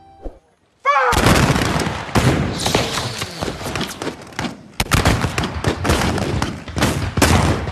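A ragged volley of rifle fire from a line of shooters, many shots overlapping in quick succession. It starts about a second in, with a brief lull about halfway through before the shooting picks up again.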